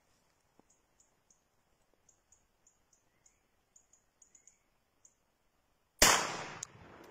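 A single shotgun shot about six seconds in, a sharp crack whose report echoes and dies away over about a second. Before it, only faint high chirps.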